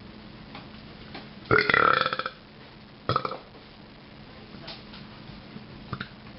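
A person burping: a long, loud belch about one and a half seconds in that rattles for most of a second, then a short second burp about a second later.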